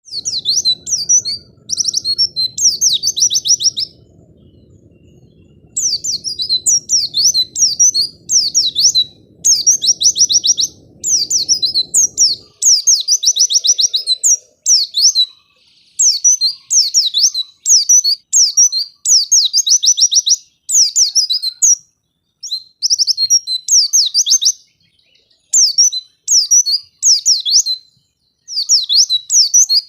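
White-eye (pleci) singing: rapid, high chirping phrases in bursts of a second or two, separated by short pauses, with a longer break about four seconds in. A faint low hum sits underneath and stops about twelve seconds in.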